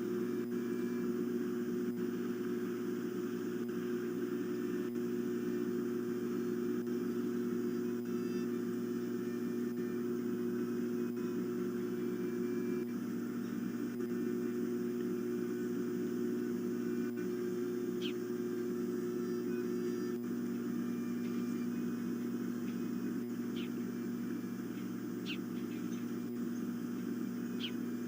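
Steady electrical hum with a low hiss behind it. A few faint, short, high chirps come in the second half.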